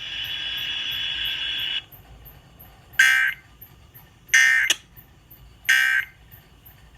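Emergency Alert System end-of-message data bursts on a radio broadcast: three short digital bursts about a second and a half apart, closing the alert. They follow about two seconds of steady radio hiss.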